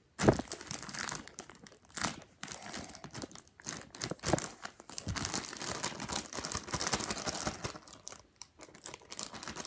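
A clear plastic bag crinkling and rustling irregularly as slime is handled and packed back into it.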